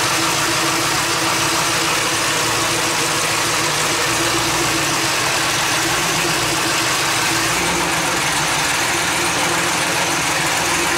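Twin-turbo LS V8 idling steadily while it warms up, the coolant temperature climbing fast toward overheating.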